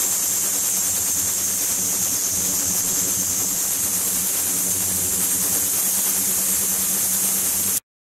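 Ultrasonic cleaning tank running with its water circulating: a steady hiss with a low hum underneath. It cuts off abruptly near the end.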